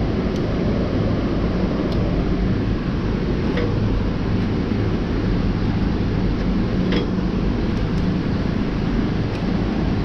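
Steady low machine hum and noise from a running Lely A4 robotic milking unit, with a few faint clicks scattered through.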